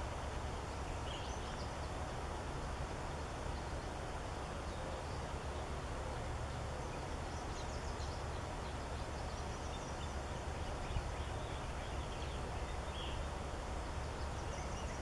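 Steady outdoor background noise with a low rumble, and a few faint, short high-pitched bird calls scattered through it.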